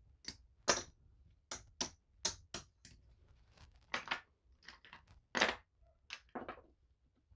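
Casino chips clacking against each other as a hand gathers them and stacks them into the chip rail of a craps table: over a dozen sharp, irregularly spaced clicks.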